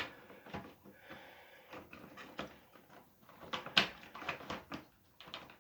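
Light clicks and taps of an HO scale diesel locomotive model being handled and set onto the rails, its wheels being worked onto the track. The loudest tap comes near four seconds in.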